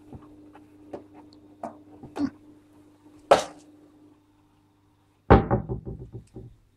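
Handling knocks and clicks on the recording phone as it is moved about over a turtle tank, over a steady low hum. A sharp knock comes about three seconds in. The hum cuts out about a second later, and then comes a loud rattling bump that dies away over about a second.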